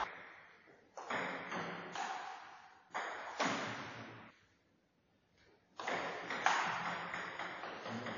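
Celluloid table tennis ball struck by paddles and bouncing on the table, each hit ringing on in the hall's echo. There is a short quiet gap about halfway through, between rallies.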